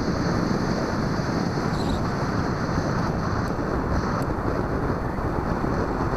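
Steady rush of airflow over the onboard microphone of a Bixler 2 RC model plane in flight, with no motor tone: the plane is gliding with its motor off.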